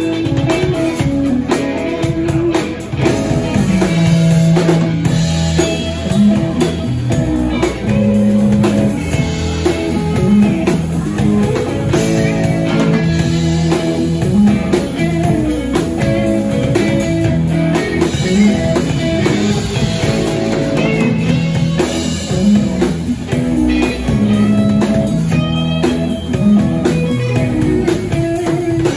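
A live band playing an instrumental jam: electric guitars over a drum kit, in a bluesy rock style.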